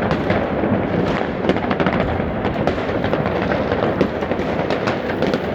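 Dense, continuous fireworks and firecrackers going off all over a city at midnight on New Year's: overlapping cracks and bangs, near and distant, with no break.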